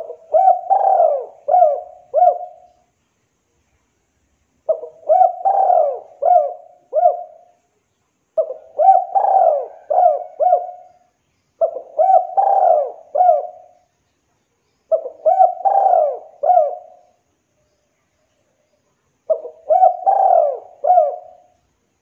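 Spotted dove (tekukur) cooing: six phrases of four or five coos each, repeated every three to four seconds, with short silent gaps between.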